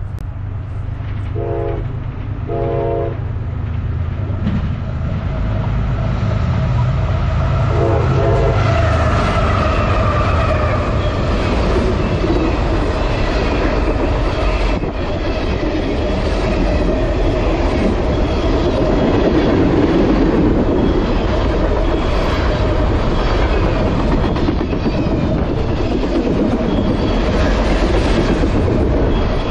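CSX manifest freight train passing at speed: a steady rumble and clatter of the freight cars' wheels over the rails that grows louder over the first several seconds. Three short horn blasts sound in the first eight seconds.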